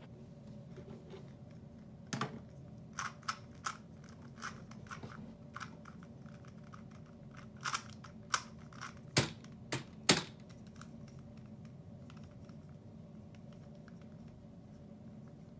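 Irregular sharp plastic clicks and clacks of a GAN 249 v2 2x2 speedcube being turned by hand, most of them in the first two-thirds, the loudest two near the middle, over a steady low room hum.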